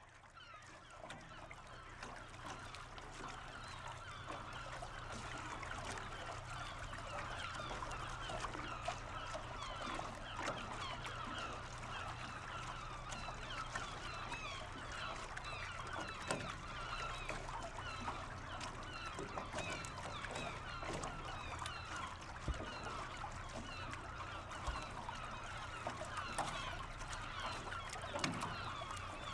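A large flock of birds calling continuously, many short overlapping honks and chirps, with a low steady hum beneath; it fades in over the first few seconds.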